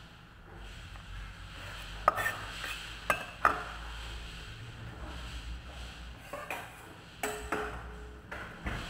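Occasional sharp clinks and knocks of kitchen utensils and dishes, about seven in all, over a faint low hum. One clink a little after the middle rings briefly.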